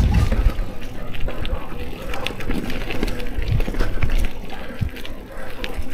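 Mountain bike riding along a stony dirt singletrack: tyres crunching and rolling over dirt and gravel, with frequent short clicks and knocks from stones and the bike's rattle, over a low rumble of riding noise.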